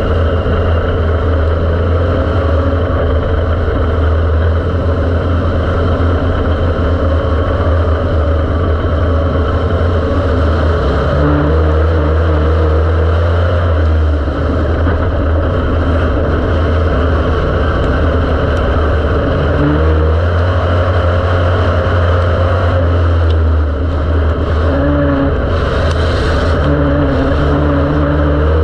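Dirt-track race car engine heard from inside the cockpit, running continuously under load. Its pitch rises and falls several times as the car is driven around the track.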